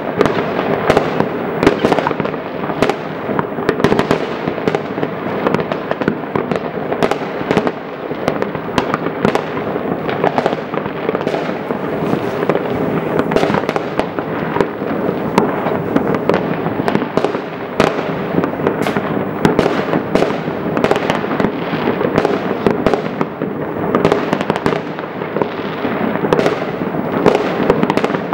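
Many fireworks going off all over a city at once: a continuous dense rumble of bangs and crackles, with frequent sharper single bangs standing out throughout.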